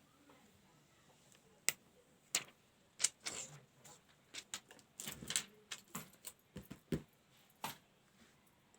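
Scattered sharp clicks and taps with short rustles from a smartphone and its packaging being handled, about a dozen irregular strokes that are thickest in the middle.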